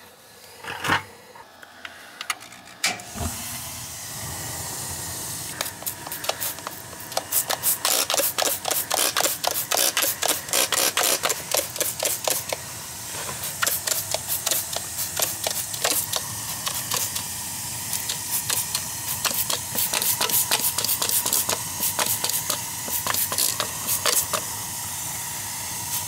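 Electronic combustible-gas leak detector ticking rapidly and irregularly, several ticks a second, faster in some stretches, while its probe is passed around a newly fitted boiler gas valve to check the joints for leaks. Under it runs a steady hiss.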